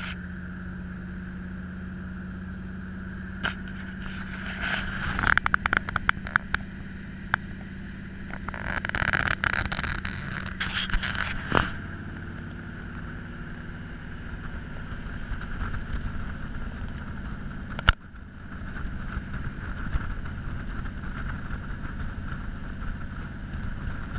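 1962 Corvette's V8 running steadily as the open car cruises, heard from the cockpit with wind rushing past. From about 4 to 12 seconds in there are loud bursts of buffeting and crackling, and a single sharp click comes about three quarters of the way through.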